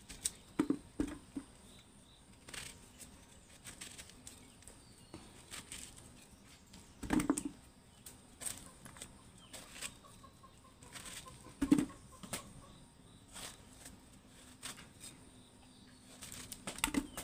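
Small knife cutting through whole guavas held in the hand, with scattered clicks and a few soft thumps as the pieces drop into a plastic bucket; chickens clucking now and then.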